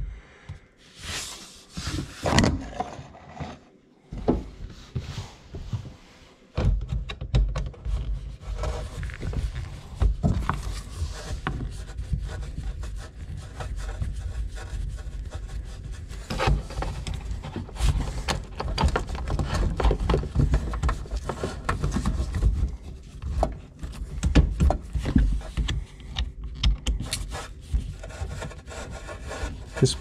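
Hands working at a dishwasher's drain hose connection underneath the unit: irregular rubbing, scraping and knocking handling noise, with a few scattered knocks at first and close, dense rubbing from about six seconds in.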